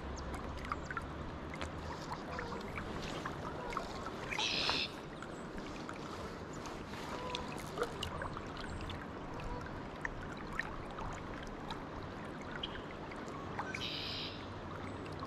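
River current flowing and lapping close by, a steady watery rush with scattered small ticks and drips. Twice, about four seconds in and near the end, a brief high rasp rises over it.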